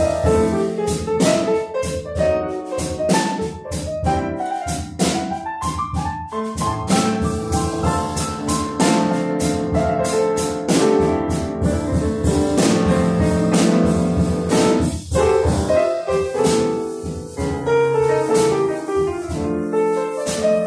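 Live jazz piano playing chords and melodic runs, with a drum kit keeping time behind it.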